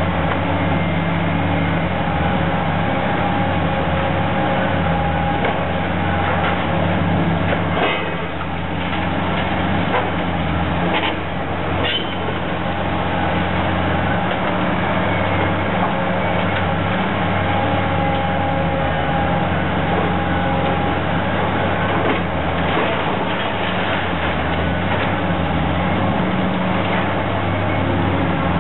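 Hydraulic excavator's diesel engine running steadily under load as its demolition attachment tears into a steel-and-concrete structure, with a few clanks and crashes of breaking debris about a third of the way in.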